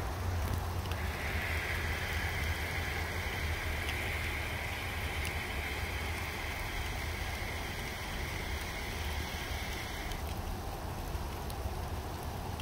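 Wintry mix of sleet, rain and snow falling in a steady patter, over a low rumble. A steady, higher-pitched hiss comes in about a second in and cuts off sharply a couple of seconds before the end.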